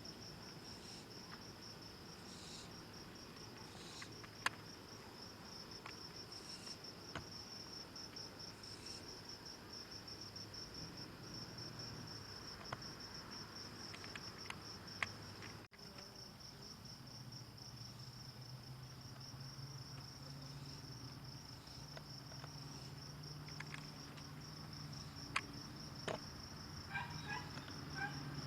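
Crickets trilling in a steady, high, continuous chorus, with a few faint clicks.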